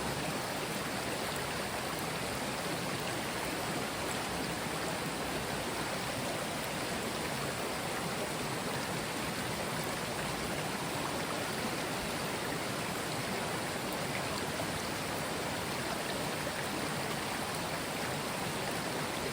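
Mountain stream flowing over stones: a steady, even rush of water.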